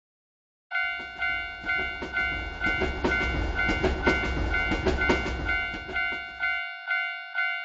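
Japanese railroad crossing bell clanging steadily about twice a second while a train rumbles past with clacking wheels. The train noise stops about a second before the end, leaving the bell alone until it cuts off suddenly.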